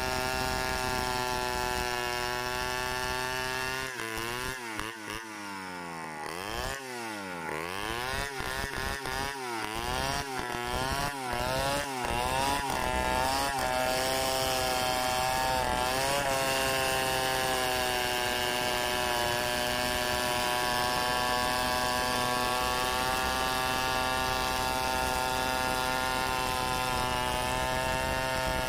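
Large two-stroke chainsaw ripping a log lengthwise, running at full throttle in the cut. From about four seconds in, its engine drops and revs back up again and again for several seconds. It then settles back to a steady full-throttle cut for the rest.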